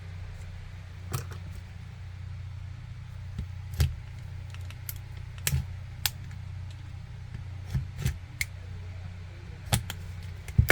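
About a dozen sharp, irregularly spaced clicks and taps of tools and the power bank's plastic case being handled during prying open, over a steady low hum.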